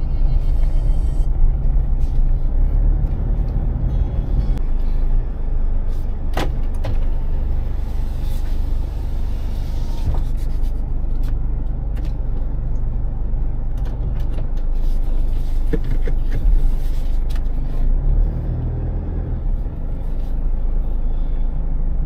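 A motor vehicle on the move: a steady low rumble with a few sharp knocks and rattles.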